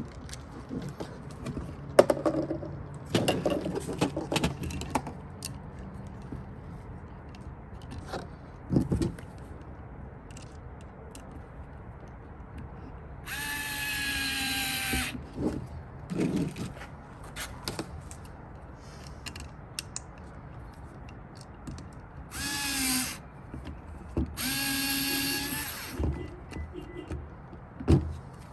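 Power drill driving screws in three short runs, its motor whine dipping slightly in pitch within each run, with clicks and handling knocks between runs as the speaker is fastened to its mounting adapter.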